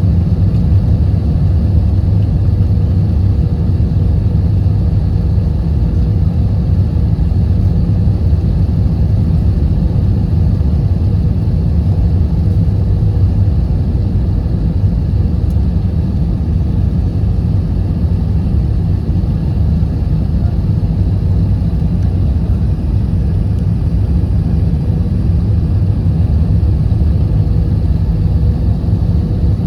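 Airliner cabin noise during the approach to landing: a steady low drone of the jet engines and airflow with a faint steady hum above it.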